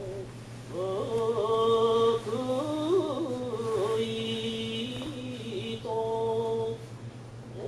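Chant-like singing: one melody line with long held notes that slide between pitches, over a steady low hum.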